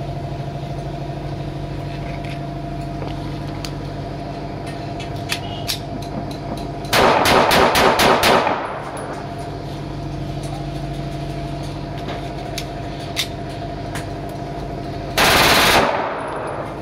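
A tan Pakistani-made Glock 18C-pattern 9mm pistol being test-fired. About seven seconds in comes a quick string of roughly eight shots. Near the end comes a short, rapid burst of fire lasting under a second. A steady mechanical hum runs underneath.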